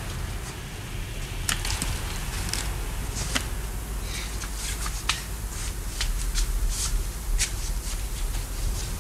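Book handling at a shelf: a scatter of light rustles and taps of paper and covers, as a book is taken down and opened, over a steady low rumble.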